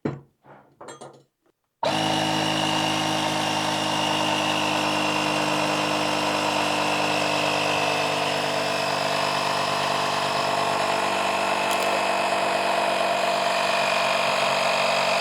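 Portable electric tyre inflator pumping up a scooter tyre's new inner tube, its motor running at a steady pitch and level. A few light clicks as it is hooked up; the motor starts about two seconds in and cuts off at the end.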